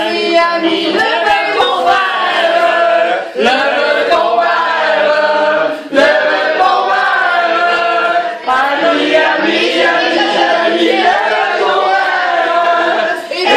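A group of men and women singing a toast song together in chorus, in phrases broken by short pauses every two to three seconds.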